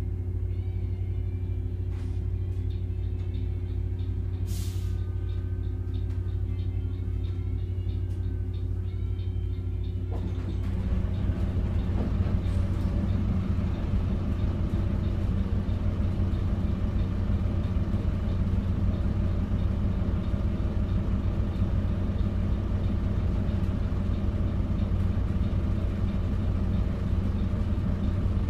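Cabin sound of a Volvo B5RLEH hybrid bus with a Volvo D5F four-cylinder diesel and I-SAM electric motor. It hums steadily at standstill, with a short hiss of air about five seconds in. About ten seconds in the drivetrain noise rises, louder and rougher, as the bus pulls away and drives on.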